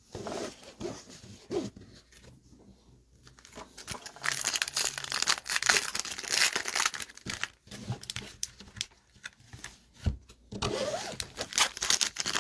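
Foil wrapper of a trading-card pack crinkling and tearing as the pack is opened, loudest from about four to seven seconds in and again near the end.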